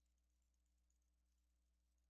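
Near silence: only a very faint steady electrical hum.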